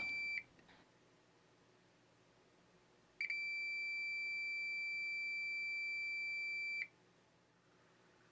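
Electronic beeper sounding a steady high-pitched tone twice: a brief beep at the very start, then a long unbroken beep of about three and a half seconds starting about three seconds in.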